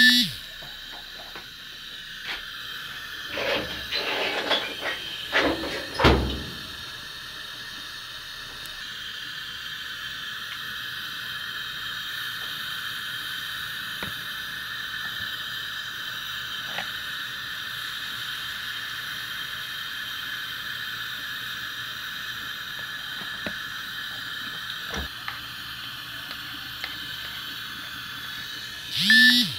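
Homemade diesel burner stove running flat out with a steady hissing rush. A few sharp knocks and clatters come about three to six seconds in, and a short loud rising sound comes at the start and again near the end.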